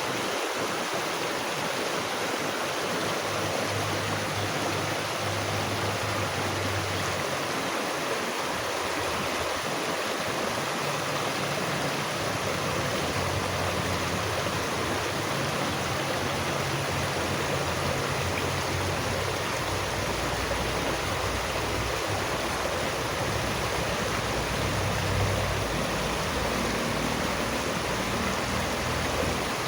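Flowing water rushing steadily, with a shifting low rumble underneath.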